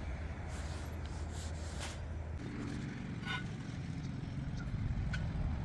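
Steady low outdoor rumble with no clear single source, with a few faint clicks and taps over it.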